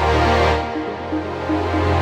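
Electronic background music with held bass notes and sustained synthesizer chords.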